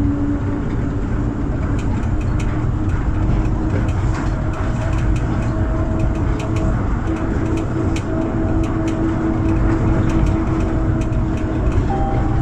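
Mitsubishi Crystal Mover C810A light rail train running along the guideway: a steady rumble of rubber tyres with a steady electric traction motor whine, heard from inside the car. Light clicks are scattered through from about two seconds in.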